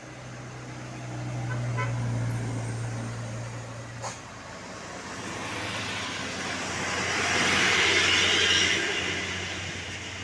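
Road traffic passing: a low engine hum builds over the first few seconds, a sharp click comes about four seconds in, then a vehicle goes by close with a swelling rush of tyre and wind noise that peaks near eight seconds and fades.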